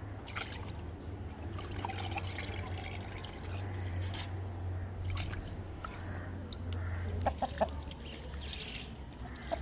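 Water trickling and dripping off handfuls of washed rice back into a bucket, mixed with a chicken clucking, a few calls about seven seconds in.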